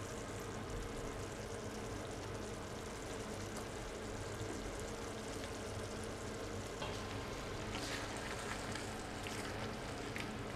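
Steady bubbling and sizzling from a pot of boiling pasta water and a pan of simmering tomato sauce, with water dripping off bucatini lifted on a pasta fork. A few faint ticks in the second half.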